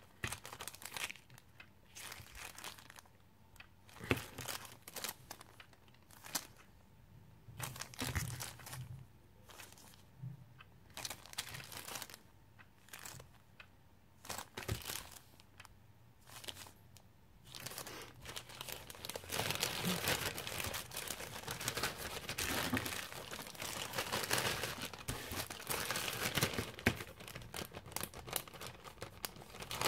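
Small clear plastic zip-lock bags crinkling as they are handled, in scattered crackles at first and then crinkling almost without a break from about two-thirds of the way in.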